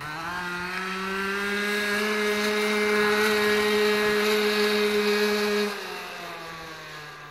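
Small dirt bike's engine running at high, steady revs, starting abruptly and growing louder, then easing off about six seconds in with its pitch dropping.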